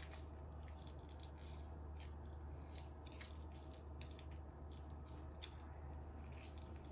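Faint kitchen handling noises while a lemon-juice remedy is prepared by hand: scattered light clicks and taps, over a steady low hum.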